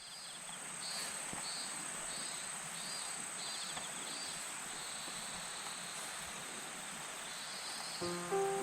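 Insects calling in a steady outdoor chorus: one continuous high-pitched trill with shorter chirps repeating roughly every half second to second. Music notes come in near the end.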